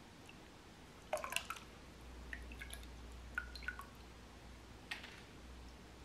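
Hands splashing in a bowl of water, then water dripping back into the bowl from a lifted clump of mini hair grass: a short burst of splashes about a second in, then a few scattered drips.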